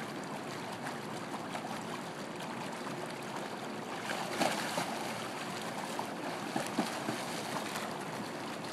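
Swimming pool water lapping and sloshing as a swimmer moves through it with a child on his back, with a few small splashes about four and a half and seven seconds in.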